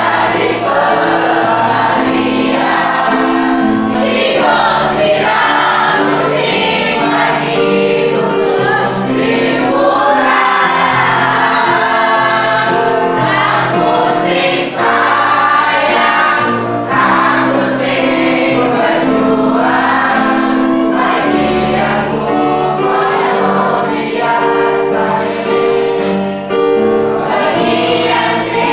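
A group of voices singing a song together to electronic keyboard accompaniment, with held notes over a steady bass line.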